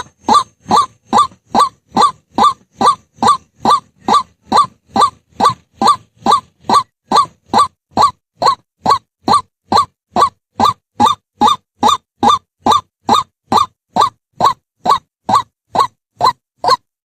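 White-breasted waterhen calling: a single loud note repeated evenly and monotonously, a little over two a second.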